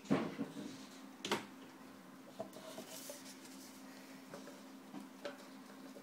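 Handling knocks at a bean-to-cup coffee machine: two sharp knocks about a second apart near the start, then lighter clicks as a paper cup is set on the metal drip tray, over a steady low hum.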